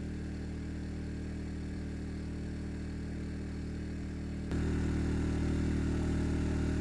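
An engine running steadily at constant speed, a low, even hum that gets louder about four and a half seconds in.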